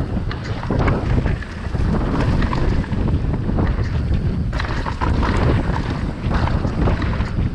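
Wind buffeting the microphone during a downhill mountain bike descent, with a dense run of short clicks and knocks from the bike rattling over rough dirt trail.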